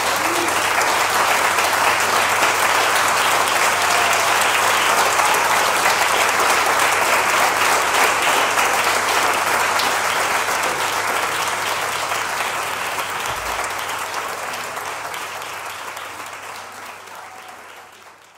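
Audience applauding: a dense, steady clapping that fades away over the last several seconds.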